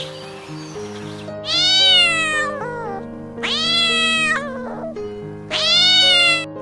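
Domestic cat meowing three times, each call about a second long and dropping in pitch at the end, over background music.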